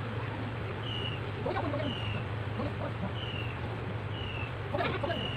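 A bird calling twice, about a second and a half in and again near the end, over a steady low hum, with a short high chirp repeating about once a second.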